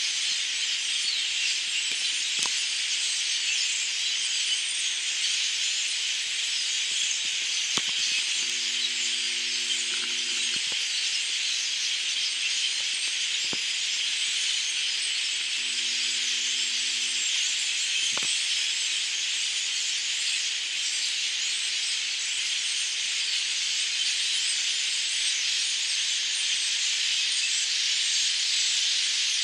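A large flock of migrating birds calling all at once, a dense steady chatter with no break. A faint low two-note tone sounds twice, for a second or two each time.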